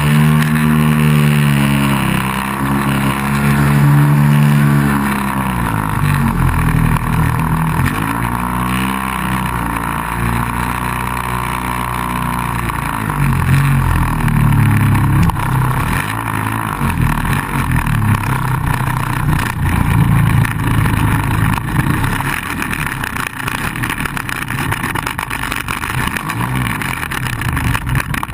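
Engine of a radio-controlled model Piper running, heard from on board. Its pitch rises and falls as the throttle is worked through low flight and the run across the grass, with wind rushing over the microphone.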